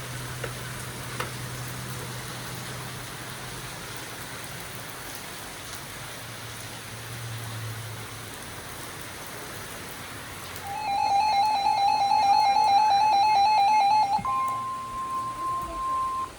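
Steady rain noise with a faint low rumble. About ten seconds in, a weather radio's alert goes off as a loud, rapidly pulsing beep, then changes to a steady high tone for about two seconds: the NOAA Weather Radio 1050 Hz warning alarm, which signals that a warning broadcast is coming.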